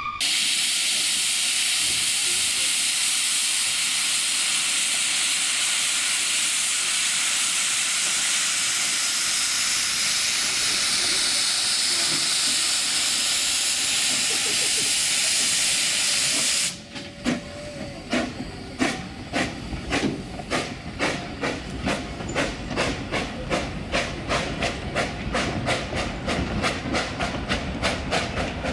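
Steam locomotive Sigbjörn hissing loudly as it blows steam from its cylinder drain cocks while starting off. About two-thirds of the way through the hiss cuts off suddenly and gives way to a regular rhythmic clatter of the train rolling away over the rails.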